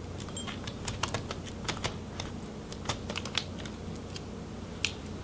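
Light, irregular clicks and taps as a small screwdriver and a laptop DC power jack with its cable are handled against a laptop palm rest's metal and plastic, with one sharper click near the end.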